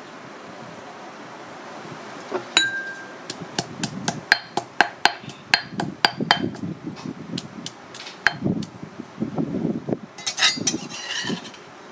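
Stone pestle pounding chopped herbs and chillies in a granite mortar: after a quiet start, sharp knocks about three a second, each with a brief stony ring. Near the end a metal utensil scrapes the paste around the mortar.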